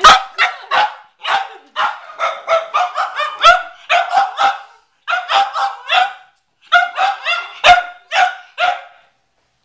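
Cavalier King Charles Spaniel barking at a watermelon, short sharp barks several a second in runs broken by brief pauses.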